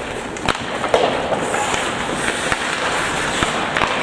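Ice hockey play on a rink: skate blades scraping the ice, with a few sharp clacks of sticks and puck at irregular intervals.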